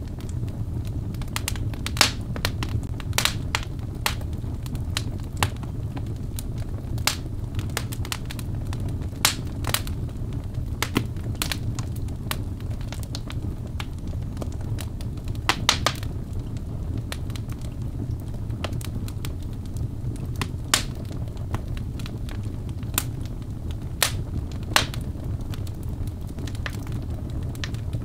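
Birch-log fire in a fireplace crackling: sharp, irregular pops and snaps over a steady low rumble of burning, with a quick run of pops about halfway through.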